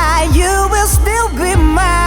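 Background music: a wavering melodic lead line over a steady kick-drum beat, about one beat every 0.6 seconds.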